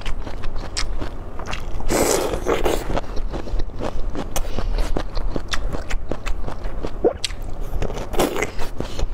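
Close-miked eating sounds of braised bamboo shoot: wet chewing with many sharp mouth clicks. There is a louder crunchy stretch about two seconds in and a crisp bite into the shoot near the end.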